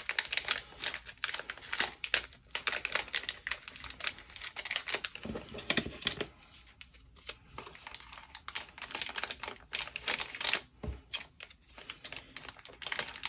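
Scrapbook die cuts and their clear plastic packets being handled on a tabletop: a run of irregular small clicks, taps and crinkles.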